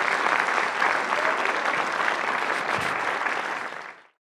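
Audience applauding steadily, then fading out quickly near the end.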